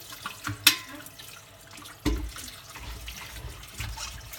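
Tap water running and splashing over a metal kettle as cleaning paste is rinsed off it, with a sharp clink under a second in and a heavier knock about two seconds in.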